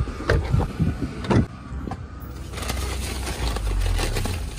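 Plastic shopping bags rustling as they are handled inside a car, over the car's low steady hum, with a few short knocks in the first second or so.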